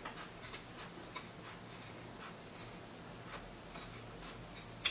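Fabric scissors snipping through print fabric and lining cut together: faint, irregular snips and rasps of the blades, with a sharper click near the end.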